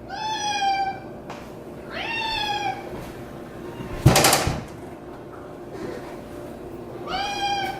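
Cat meowing three times, each meow rising and then falling in pitch. A short, loud noise comes about four seconds in.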